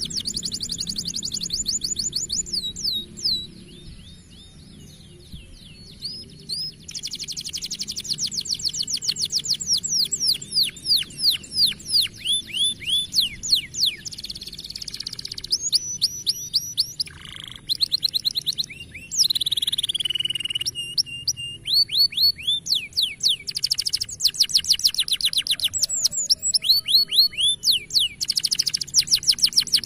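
Canary singing: long, rapid trills of repeated falling notes broken by short pauses, with a few sustained or sliding notes in between.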